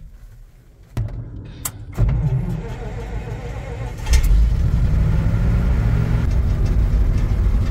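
Old ZIL truck's engine being started, heard inside the cab: a click about a second in as the starter engages, a low cranking rumble, then the engine catches and picks up to a steady loud run about four seconds in.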